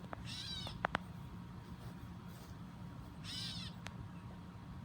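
A baby bird calling twice, about three seconds apart, each call short with a rising-then-falling pitch. A few sharp clicks sound near the start.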